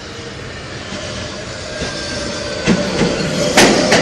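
New York City Subway R160A-2 train pulling into the station, growing louder as it draws alongside. A faint whine falls in pitch as it slows, and in the second half the wheels clack sharply over rail joints.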